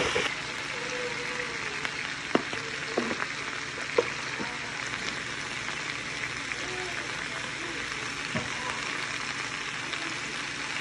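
Sliced zucchini and yellow squash sizzling steadily in a hot frying pan, with a few sharp taps about two to four seconds in.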